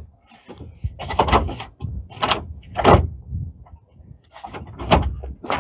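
Several sharp knocks and clatters at irregular intervals as a side-by-side's framed upper door is handled against its roll-cage mounts and latch.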